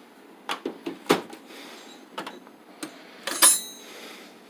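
Metal hand tools, wrenches, clinking and knocking as they are handled in a tool chest drawer: a scatter of sharp clicks, loudest as a ringing metallic rattle about three and a half seconds in.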